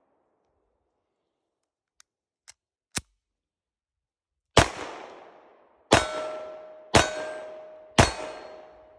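Luger P08 pistol fired four times, about a second apart, each shot trailing off in a fading ring. The repaired toggle action keeps cycling from shot to shot. A few faint clicks come before the first shot.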